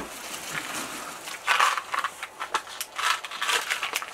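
Tissue paper and packaging rustling and crinkling as hands rummage in a cardboard box, a run of quick, irregular crackles.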